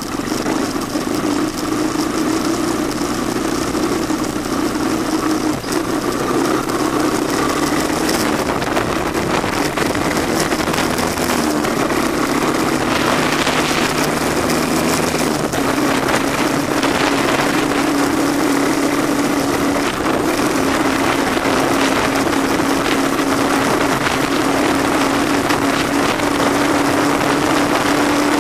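Honda ATC185S three-wheeler's single-cylinder four-stroke engine running at a steady, even pitch while it is ridden along a dirt trail, with a rushing noise over it near the middle.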